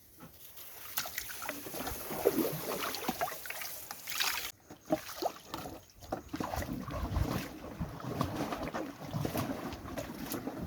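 Small canoe being paddled or poled through water: irregular splashing and sloshing, with scattered knocks.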